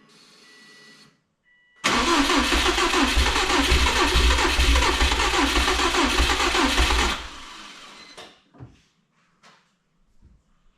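2003 Subaru WRX's turbocharged flat-four engine being cranked by the starter. It starts about two seconds in, runs for roughly five seconds, then stops fairly suddenly and fades. This is the hard-start condition the owner blames on a speed-density tune that he thinks runs rich at startup.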